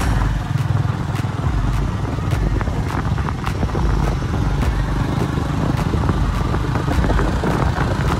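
Small 110cc single-cylinder motorcycle engine running steadily while riding, over a low rumble, with light ticks about twice a second.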